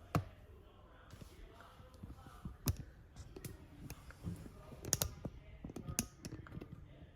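Scattered sharp clicks and taps, about six, from small metal parts of a Breville espresso machine's detached steam wand being handled.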